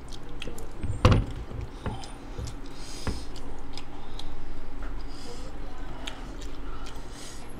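Eating sounds of bare hands tearing apart a whole chicken curry, with chewing and scattered small clicks. A sharp knock comes about a second in, and a smaller one about three seconds in.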